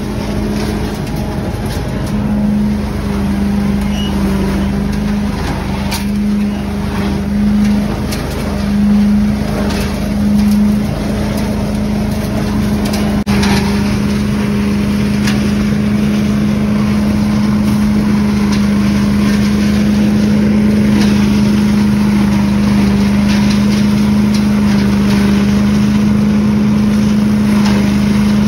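29 HP Scag leaf loader running at full throttle, a steady pitched engine-and-fan drone with air rushing in through the intake hose as it sucks up leaves. The level swells a few times around the middle.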